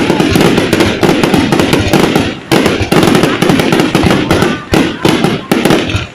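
Fireworks going off in rapid, dense, overlapping bangs and crackles, very loud and near-continuous.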